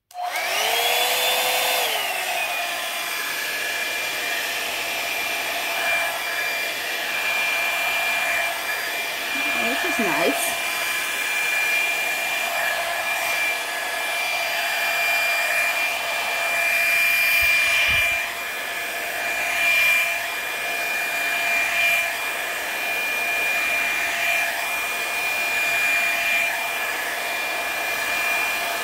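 Revlon One-Step hair dryer brush switched on at its low setting. The motor spins up over the first couple of seconds, then runs steadily with a whine over the rush of air. The level swells and dips as the brush is drawn through the hair.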